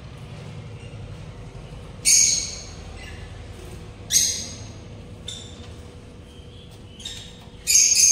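Small parrots squawking: short harsh calls, loud ones about two seconds in, about four seconds in and near the end, with fainter calls between.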